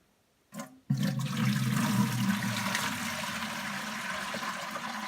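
Water poured from a jug into a bucket. It starts about a second in and runs steadily as a loud splashing pour, easing slightly as it goes on.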